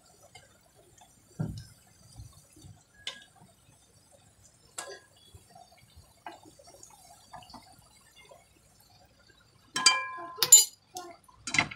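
Steel spoon clicking and scraping against an aluminium kadai while cookies are turned over in shallow frying oil, with faint oil bubbling. About ten seconds in the spoon clinks sharply on the pan with a short metallic ring, and clinks once more near the end.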